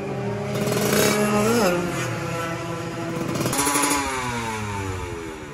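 Tuned drag-race motorcycle engine running and being revved: a short blip about a second and a half in, then a sharper rev past the middle that falls away slowly in pitch.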